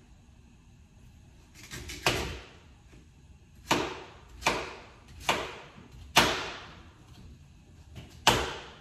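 Six sharp knocks, irregularly spaced, each with a short ringing tail: kitchen work while the sweet potatoes are cut up and put in to cook.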